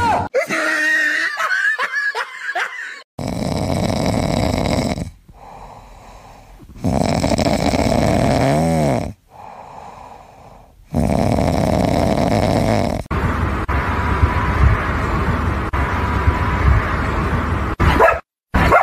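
Cat snoring in its sleep: loud, rasping breaths about two seconds long, with quieter gaps between them.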